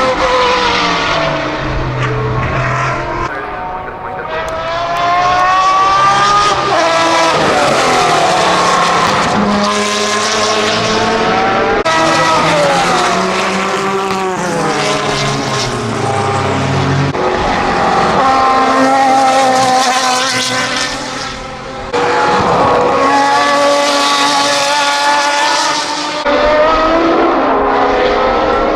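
Jaguar XJR-9 Group C race car's 7.0-litre naturally aspirated V12 at racing speed, its note rising and falling again and again through the gears and as it passes.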